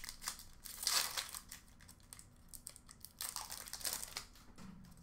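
Upper Deck Trilogy hockey card pack wrapper being torn open by hand, a flimsy wrapper that comes apart in pieces. It crinkles in two short bursts, about a second in and again around three seconds, with light handling ticks between.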